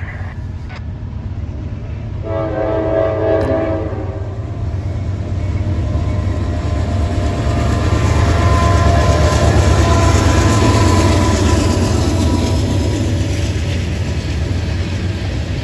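Norfolk Southern freight train led by GE diesel locomotives approaching and passing. The lead locomotive sounds one horn blast, about two seconds long, some two seconds in. The low rumble of the locomotives then grows loudest as they go by, with the noise of the wheels and cars on the rails.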